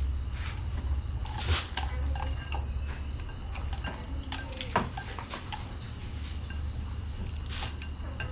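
Metal pans and cooking utensils clinking and knocking as a small pan is handled and stirred with chopsticks, a handful of separate knocks over a steady low hum.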